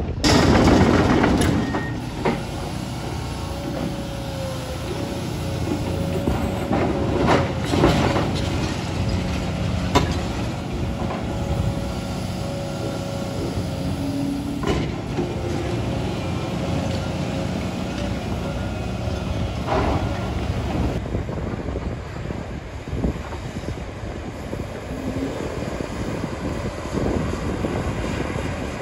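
Tracked excavators' diesel engines and hydraulics working, a steady heavy rumble with a held whine between about four and fourteen seconds in. A few sharp clanks and knocks, as from buckets against rock, come through it.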